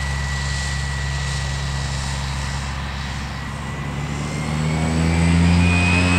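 Turboprop engine and propeller of an Air Tractor crop-spraying plane running on the strip: a steady high whine over a low propeller drone. About four seconds in, the pitch rises and it grows louder as power comes up.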